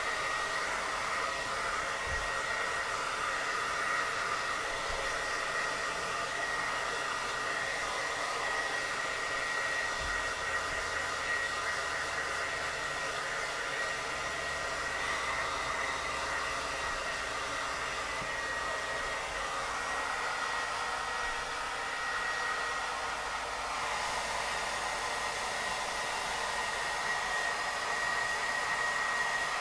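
Handheld hair dryer running on its cold-air setting: a steady rush of air with a constant high whine from the motor.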